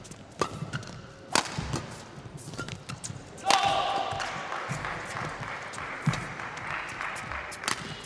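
Badminton rally: rackets smacking the shuttlecock in sharp cracks a second or two apart, with lighter footstep and shoe clicks on the court. A hard hit about three and a half seconds in is followed by several seconds of hissing noise from the hall.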